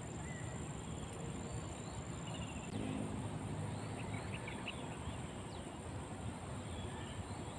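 Riverbank ambience: a high steady insect buzz that drops away about two and a half seconds in, with scattered short bird chirps over a steady background hiss.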